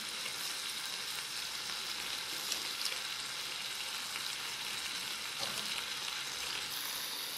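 Chicken pieces in onion-tomato masala sizzling steadily in a hot kadai.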